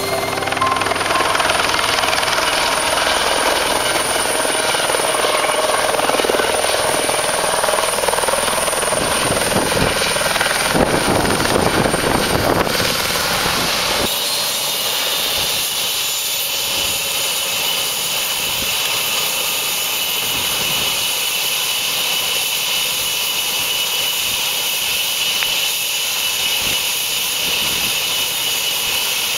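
Small single-turbine Eurocopter helicopter running close by. For the first half the rotor and engine noise is louder and rougher. After a sudden change about halfway, a steadier high turbine whine with the rotor turning as the helicopter idles on the ground.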